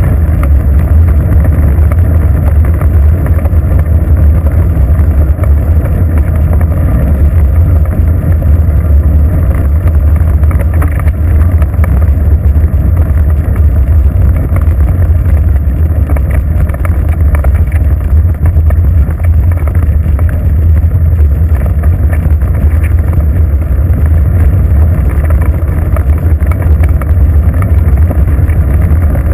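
Steady wind buffeting and tyre-on-road rumble picked up by a bicycle-mounted GoPro camera while riding. It is loud and mostly a low rumble, with no change in pace throughout.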